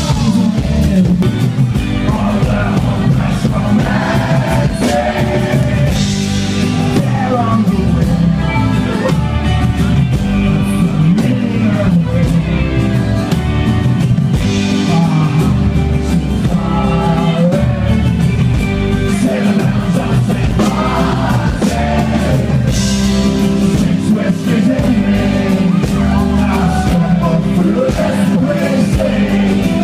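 Live rock band playing loud, a male singer singing over electric guitar and drums, heard close to the stage.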